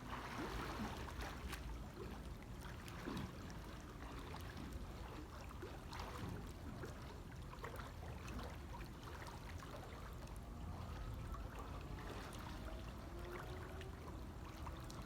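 Pool water sloshing and splashing as a person moves through it, with small irregular splashes over a low rumble.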